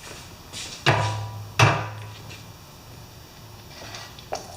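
Two hard knocks about two-thirds of a second apart, each followed by a short low ring, as something solid is handled and set down.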